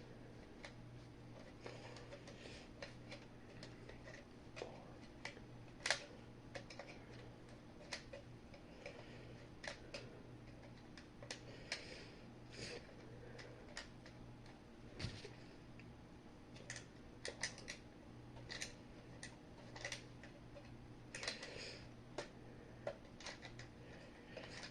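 Faint scattered clicks and taps of a fire alarm's parts being handled and fitted together, one louder click about six seconds in, over a steady low hum.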